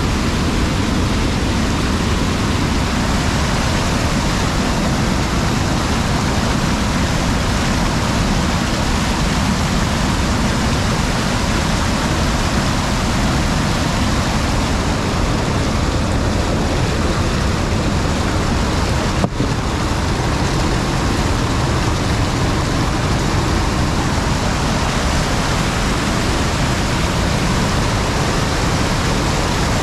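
Loud, steady rush of a mountain stream running high, with one brief knock about two-thirds of the way through.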